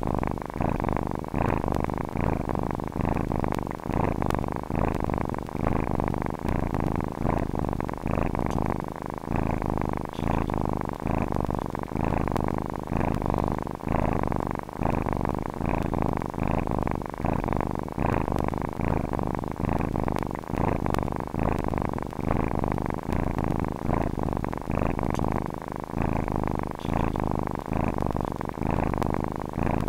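Domestic cat purring steadily and continuously, the purr swelling and easing with each breath about every two seconds.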